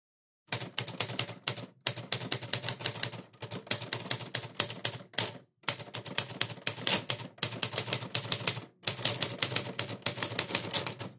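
Typewriter typing sound effect: rapid keystroke clicks in runs, broken by short pauses every second or two.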